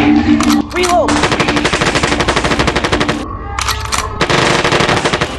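Rapid machine-gun fire in two long bursts, with a short break a little past halfway.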